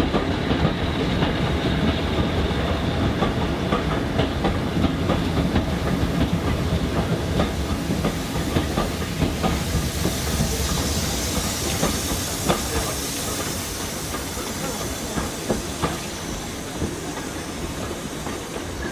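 Departing heritage train of a Class 50 diesel and a GWR pannier tank engine with its coaches: a steady low rumble with a run of wheel clicks and knocks. A hiss comes up about halfway through, and the whole sound eases off slightly toward the end.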